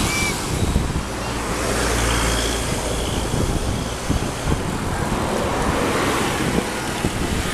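Road traffic passing, with a vehicle engine droning low for a couple of seconds starting about a second in.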